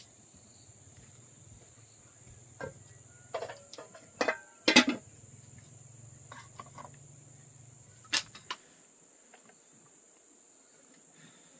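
Insects chirring steadily with a high, even tone, over a faint low hum that stops about eight and a half seconds in. A handful of sharp knocks and clatters cut through, the loudest a quick double knock about five seconds in.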